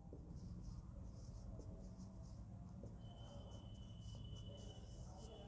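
Whiteboard marker writing on a whiteboard: faint, irregular scratching strokes as numbers are written. A thin steady high tone comes in about halfway through.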